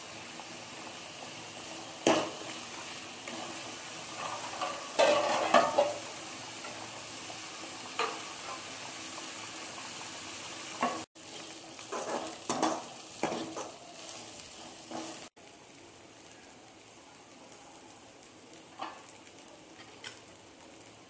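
A pot of mushroom broth cooking on a gas stove with a steady hiss, while a ladle knocks and scrapes against the aluminium pot, loudest in a clatter about five seconds in.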